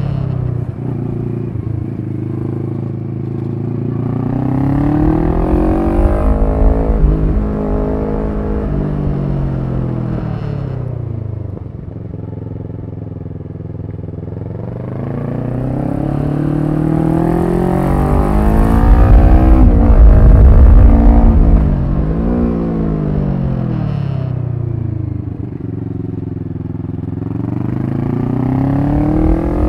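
Kawasaki Versys 650's parallel-twin engine under way on a winding road, its revs climbing and falling again and again as the rider accelerates out of bends and rolls off into the next. A low wind rumble swells with speed and is loudest about two-thirds of the way through.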